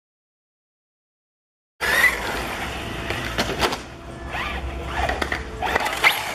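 Silence for about the first two seconds, then a 1/8-scale RC buggy running over the whoops of a dirt track: tyres scrabbling on dirt, sharp suspension and chassis knocks, and a motor whine that rises and falls with the throttle.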